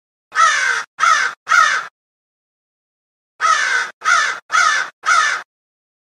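Crow cawing: three caws in quick succession, a pause of about a second and a half, then four more, each caw falling slightly in pitch.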